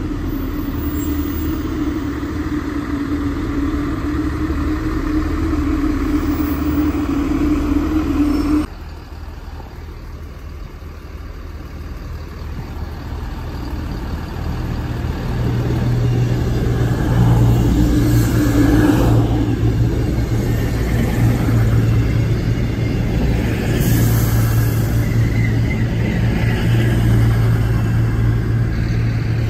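Diesel multiple-unit trains at a station platform. First a Transport for Wales Class 158 diesel unit runs with a steady engine tone until an abrupt cut about a third of the way in. Then an Avanti West Coast Voyager diesel train approaches, and its underfloor engines make a steady low hum that grows louder from about halfway in as it comes alongside.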